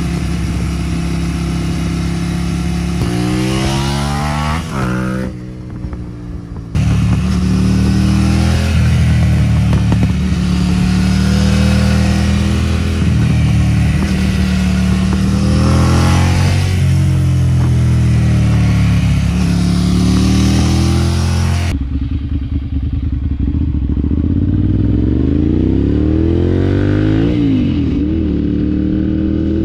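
2009 Ducati Monster 696's air-cooled L-twin engine, heard through an aftermarket exhaust, revving and accelerating as the motorcycle is ridden. The pitch climbs and drops several times as it pulls through the gears.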